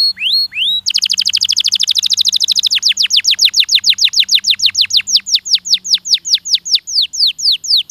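Domestic canary singing. It gives three quick rising whistles, then a long trill of rapid falling notes that starts very fast and slows to about four notes a second before it stops.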